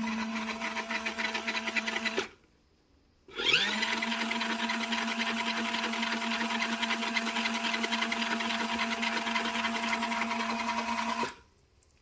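Small electric motor of a mini portable washing machine driving its spin-dryer basket, running with a steady hum. It stops about two seconds in, spins back up with a rising whine a second later, and stops again near the end: the spin cycle stops and goes.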